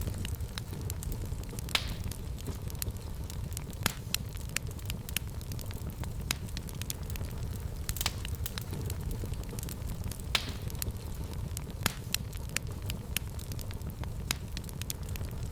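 Fireplace fire crackling: frequent sharp pops and snaps, a few of them louder, over a steady low rumble.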